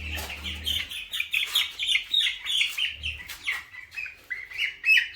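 Broiler chicks, about two weeks old, peeping: a quick run of short, high calls, each falling in pitch, several a second, loudest near the end.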